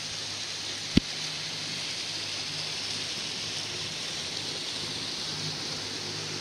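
Steady hiss of outdoor background noise, with one sharp click about a second in.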